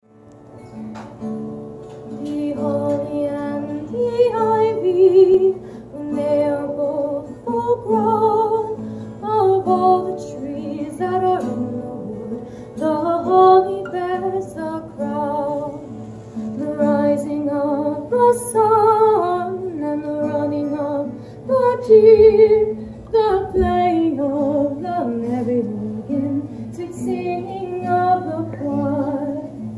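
A woman singing a Christmas song, accompanied by her own acoustic guitar, with a slight waver on the held notes.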